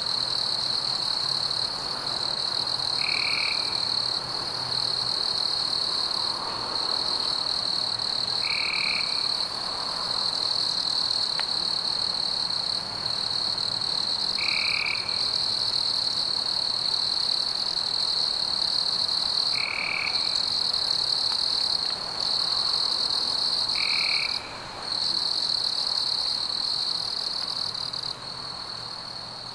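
A chorus of frogs and insects: a steady high-pitched trill, with a short call repeating about every five to six seconds.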